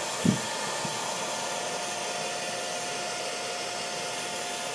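Hair dryer blowing steadily, its motor giving a steady whine over the rush of air. A brief low thump sounds about a quarter of a second in.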